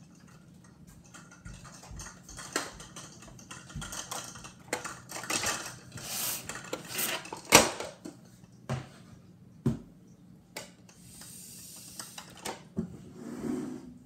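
Small objects being handled and set down: an irregular run of clicks, taps and light clatter, the loudest a sharp knock about seven and a half seconds in, with a soft rustle near the end.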